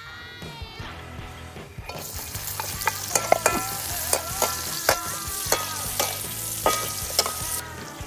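Sliced vegetables sizzling loudly in hot oil in a steel wok, the sizzle starting suddenly about two seconds in as they go into the oil. A metal ladle scrapes and clanks against the wok about twice a second as they are stir-fried. The sizzle cuts off just before the end.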